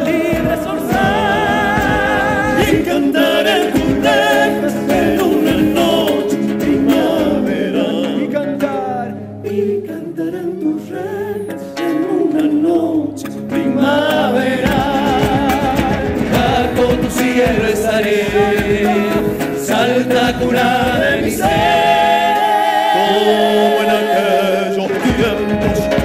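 Live Argentine folk song: several voices singing together with vibrato over strummed acoustic guitars and the beat of a bombo legüero drum. The music thins to a softer passage about a third of the way in, then returns to full voice.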